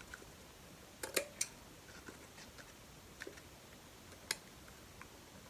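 Scissors making small snips in scrapbook paper over cardboard at a box corner: a few faint, sharp clicks, three close together about a second in, then single ones spaced out.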